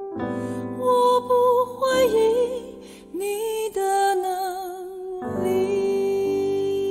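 A Chinese worship song: a solo voice sings a slow melody with vibrato over sustained keyboard accompaniment, with the chords changing about two and five seconds in.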